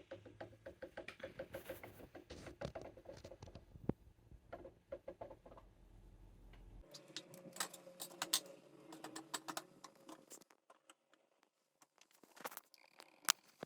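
Faint, rapid irregular ticking and bubbling from an ink bottle draining into the ink tank of an Epson ET2820 EcoTank printer, as air bubbles up into the upturned bottle. It thins to sparser clicks about seven seconds in.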